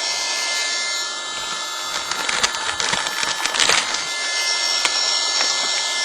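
Small electric airbed-pump fan blowing air into a charcoal-fired furnace: a steady whirring hiss with a thin high whine. From about two to four seconds in there is a run of crackling and knocks.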